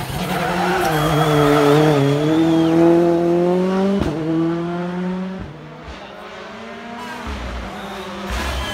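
Rally car engine coming off the throttle into a hairpin, its pitch falling, then climbing steadily as it accelerates away, with a high wavering squeal over it for a couple of seconds. The sound breaks off abruptly about four seconds in, and after that fainter engine sound of other cars runs on at a distance.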